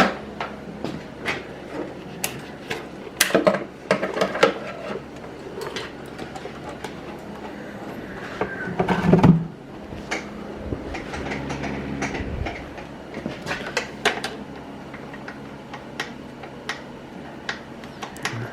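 Scattered clicks, knocks and metallic clanks of hands working on an ATV and handling tools and parts, with a heavier knock about halfway through, over a faint steady hum.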